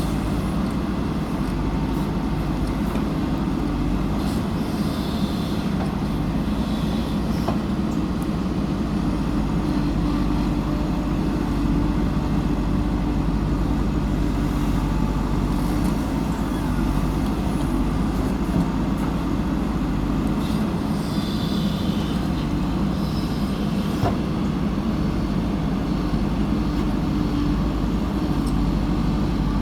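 Heavy diesel engine running steadily, with faint brief high squeaks about five seconds in and again after twenty seconds.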